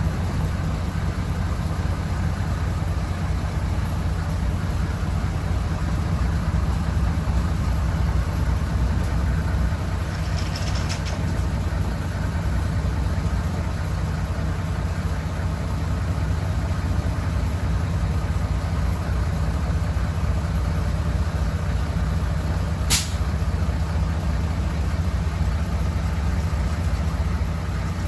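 Borgward B555-K truck engine running steadily, with a single sharp click about twenty-three seconds in.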